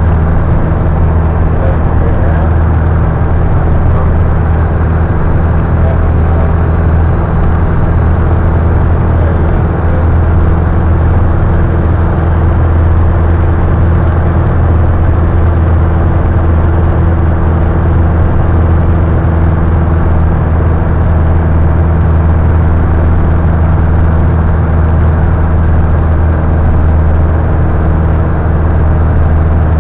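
Light aircraft's engine and propeller droning steadily at constant power, heard from inside the cabin in flight.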